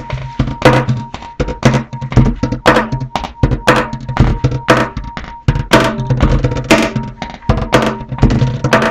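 Background music with a steady drum and percussion beat: a strong hit about once a second with lighter hits between, over a sustained low note.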